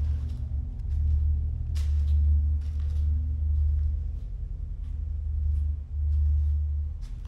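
Low, dark ambient drone: a deep rumble with steady tones above it that swells and fades, dipping briefly near the end, with a few faint clicks.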